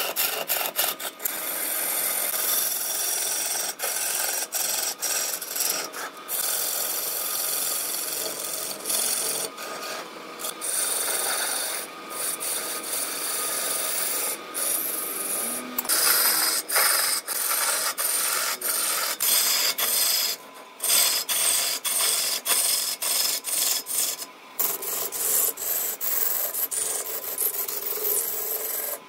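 A hand-held turning tool cutting a large wooden spindle spinning on a wood lathe: a continuous rough shaving and scraping noise, broken by several brief pauses.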